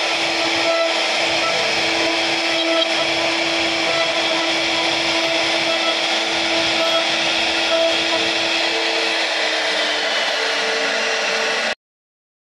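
CNC router spindle running with a carving bit cutting into a wooden door panel: a steady, loud whine over a dense rush of noise. It cuts off abruptly near the end.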